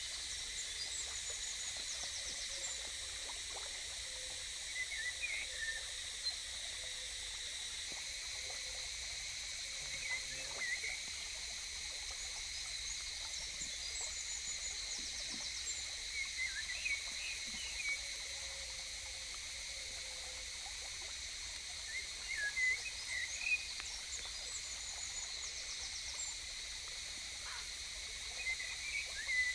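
Forest ambience: a steady high-pitched insect drone, with short chirping calls in small clusters every few seconds.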